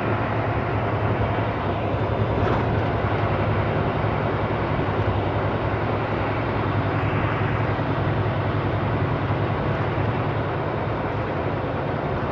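Semi truck's diesel engine running steadily with tyre and road noise while driving.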